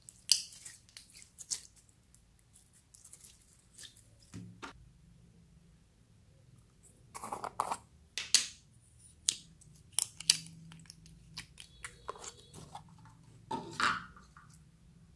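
Hands stretching and squeezing slime, first a clear slime with beads in it, then a thick white slime: scattered sticky clicks, pops and squishes, with a few louder bunches of crackles.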